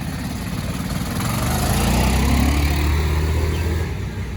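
Quad bike engine running, growing louder through the middle and easing off near the end.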